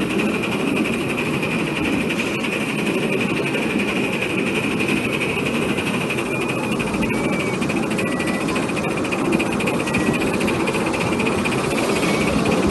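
5-inch gauge Maxitrak J94 Austerity 0-6-0 live-steam model locomotive running steadily under load on its track, a continuous mix of exhaust and wheel-on-rail noise.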